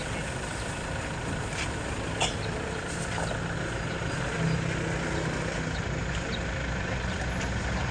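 Steady low rumble of a motor vehicle engine running at idle, with a few light clicks over it, the sharpest about two seconds in.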